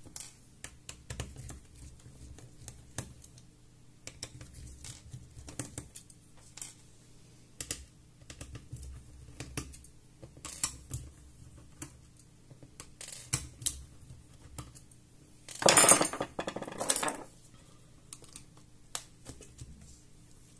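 Scattered light clicks and taps of a hand screwdriver working the metal hinge screws of a laptop, with a louder burst of handling noise twice, about sixteen seconds in.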